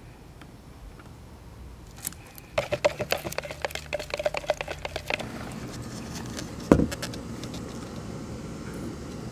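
Stir stick clicking and scraping rapidly inside a plastic mixing cup as resin is mixed, for about two and a half seconds starting a couple of seconds in. A single sharp knock follows, and a steady background drone sets in under it for the rest.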